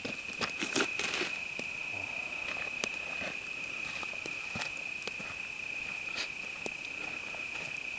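Crickets chirping in a steady, unbroken high trill, with scattered small crackles from a burning straw campfire.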